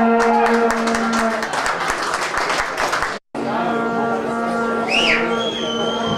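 Football crowd at a small ground: a supporter's horn droning on one low note over clapping and voices. The sound drops out for a split second midway, then comes back with the horn, and about five seconds in a referee's whistle sounds one long steady blast, the signal for a free kick to be taken.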